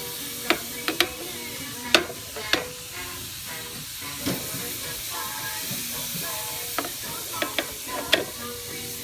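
Marinated short ribs sizzling on a hot charcoal grill grate: a steady hiss broken by scattered sharp pops and crackles.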